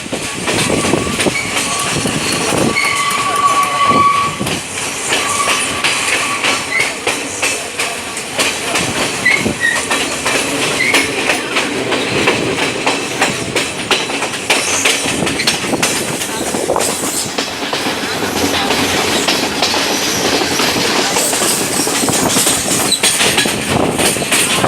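A train passing close by, its wheels clattering steadily over the rail joints. A thin, steady high tone sounds in the first few seconds.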